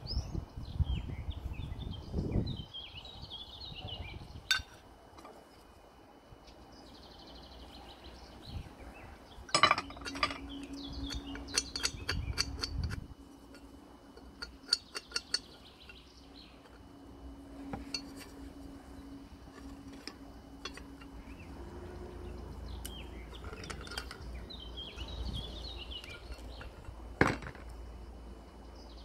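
Cast-iron stove parts clinking and knocking against each other and the table as they are handled and fitted together, with a quick run of clinks about ten seconds in and one sharp knock near the end.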